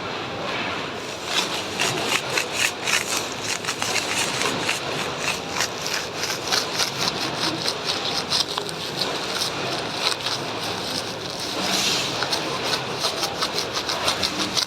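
Rapid rhythmic mechanical clatter, about four knocks a second, over a steady machine noise.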